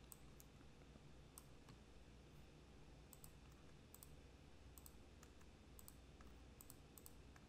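Near silence with faint, scattered clicks of a computer mouse and keyboard, about a dozen in all, over a low steady hum.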